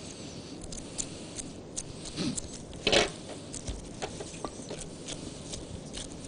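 Gloved hands rolling date-filled kleicha dough into a log on a wooden board: scattered soft rubbing and small clicks, with one louder short noise about three seconds in.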